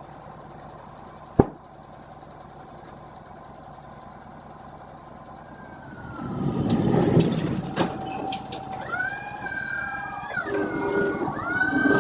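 Sawmill machinery running with a steady low hum and one sharp knock about a second and a half in. From about six seconds it grows louder, with a whine that rises and falls in pitch as the machine takes up load.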